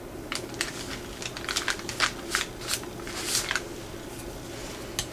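Fingers pressing and smoothing a glued paper label onto a brown paper bag: a run of short paper rustles and taps that thins out over the last second or so.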